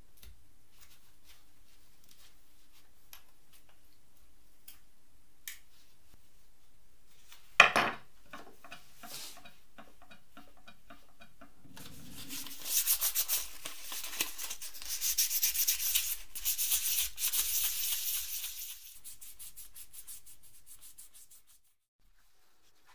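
2500-grit sandpaper rubbed by hand over a small glass mirror, sanding off its worn-out mirror coating in loud, uneven strokes for about seven seconds, then more softly before stopping. Earlier comes a single sharp knock.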